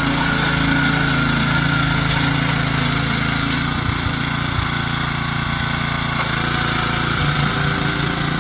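Honda GX160 single-cylinder four-stroke petrol engine of a mini tiller running steadily, its pitch shifting slightly near the end, with a few low knocks around the middle.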